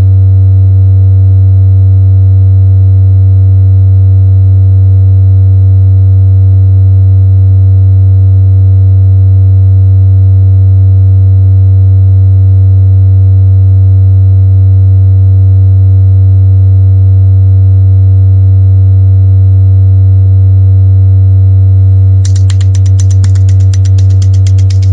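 Loud, steady, low electronic drone tone holding one pitch, with fainter higher tones above it. About 22 seconds in, a dense crackling, fizzing noise joins it.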